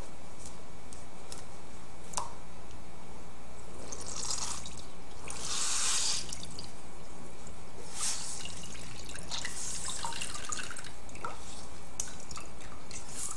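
Juice dripping and trickling out of a hand-squeezed muslin straining bag into a glass measuring bowl, coming in several splashing spurts as the bag is wrung, with a few small clicks.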